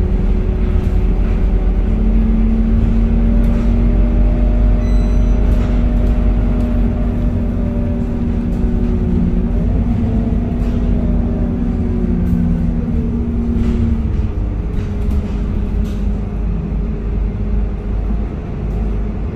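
Scania K230UB city bus under way, heard from inside its cabin: its five-cylinder diesel and driveline give a steady hum over low road rumble. The pitch rises about nine seconds in, then slides down over the next few seconds, with scattered light rattles.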